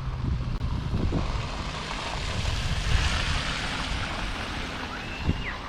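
A car passing on a snow-covered road: its engine and tyre hiss swell to a peak about halfway through and then fade, over low wind rumble on the microphone.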